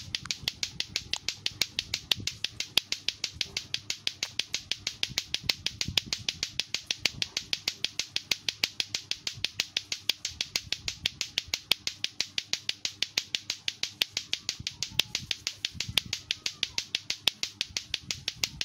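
Lato-lato clackers: two hard plastic balls on a cord swung up and down, striking each other in a fast, steady, unbroken rhythm of sharp clacks.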